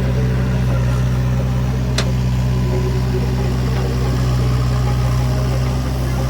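Diesel engine of a backhoe or tractor running steadily at a constant speed, with a single sharp click about two seconds in.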